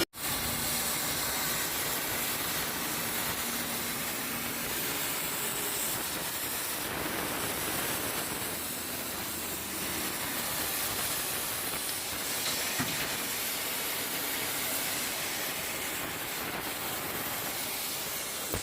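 Oxy-fuel cutting torch on a semi-automatic gas cutting machine, its flame and cutting-oxygen jet hissing steadily as it cuts steel plate.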